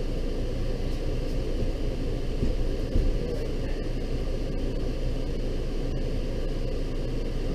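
Steady low rumbling noise, with a single dull thump about three seconds in.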